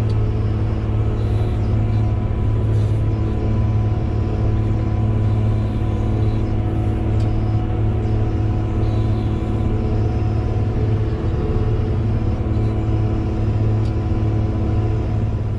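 Bulldozer's diesel engine running steadily under working load, a constant low hum that holds unchanged throughout.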